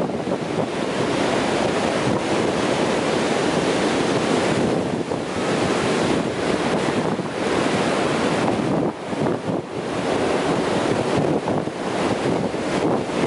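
Ocean surf breaking and washing up a sandy beach: a steady rush of waves and foam that eases briefly about nine seconds in.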